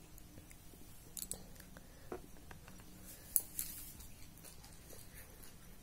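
A few faint light knocks and handling sounds, the loudest about three and a half seconds in, as a ceramic tea cup is set down on a plate beside the biscuits.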